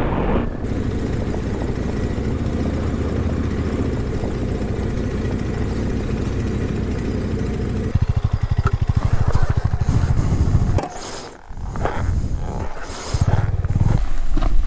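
KTM adventure motorcycle running at steady road speed with wind noise, then idling with a rapid even pulse after it pulls onto the gravel shoulder. About three seconds later the engine cuts off, and scuffs and rustling of riding gear follow.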